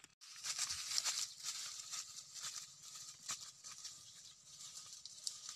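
Footsteps through dry leaves and grass: a run of irregular light crunches and rustles over a steady high hiss.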